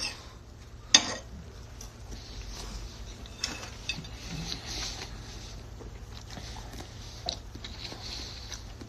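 Knife and fork cutting and scraping on a plate, with a sharp clink about a second in and a few fainter clicks later.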